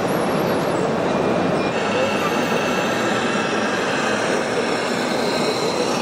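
Steady indoor hall din with indistinct crowd chatter. A faint, steady high whine joins in about two seconds in.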